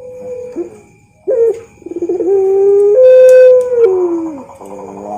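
Puter pelung dove cooing: long drawn-out notes that hold steady and then fall in pitch, the loudest about three seconds in, with a rolling, pulsed stretch near the end.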